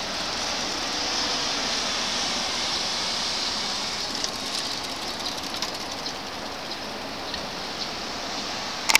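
Steady high hiss of outdoor background noise, with a few faint ticks in the second half.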